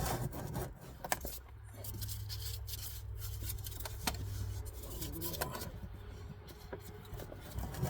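Socket ratchet clicking with scattered metal clicks as the oil drain plug of a 2010 Ford Ranger 2.3 is worked loose. A low steady rumble runs underneath from about a second in until past the middle.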